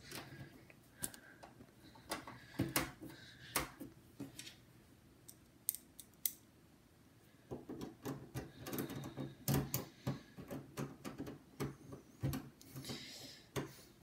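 Screwdriver and small screws clicking and scraping against the metal case of a Gateway desktop computer as the side-cover screws are fitted and turned in: scattered ticks at first, then a busier run of clicks and scratches in the second half.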